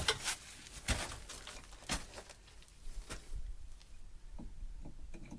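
Knocks and scrapes of timber and tools, a sharp knock roughly once a second for the first three seconds, then fainter clicks and ticks.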